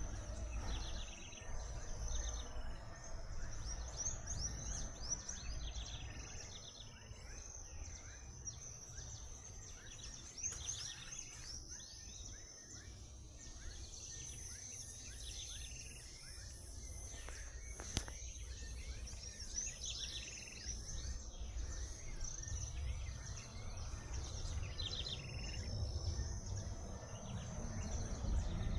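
Birds chirping: clusters of short, quickly repeated high notes come and go throughout, over a steady high-pitched whine and a low rumble.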